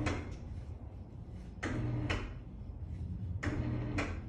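Auxx-Lift ceiling storage lift being adjusted: short mechanical whirring bursts with clicks, repeating about every one and a half to two seconds, as its inside adjustment screw is turned to the right and the lift creeps up to set its ceiling stop.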